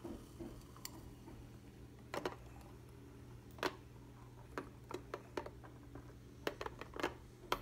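Light scattered clicks and taps of a stainless-steel French press being handled on a glass stovetop, more frequent in the second half, over a faint steady low hum.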